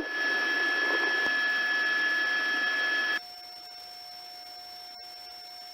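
Police radio channel left open after a transmission, hissing with steady whining tones. About three seconds in it cuts off abruptly to a fainter steady hum.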